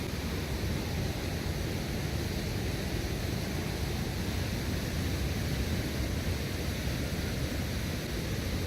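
Waterfall on a river swollen by rain, a steady rushing roar of falling water.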